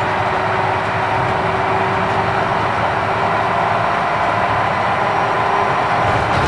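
Volvo B9TL double-decker bus under way, heard from inside on the upper deck: its nine-litre six-cylinder diesel running at a steady pace over road noise, with a constant whine and no change in pitch.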